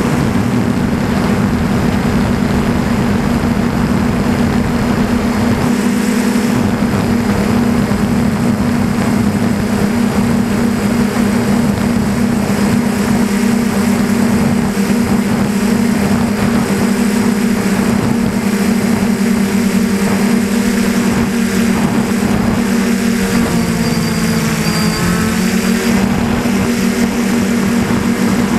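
DJI Flamewheel 450 quadcopter's brushless motors and propellers buzzing steadily, heard from a camera mounted on the airframe, over a rushing hiss. A little past three quarters of the way through, the pitch dips briefly and rises back.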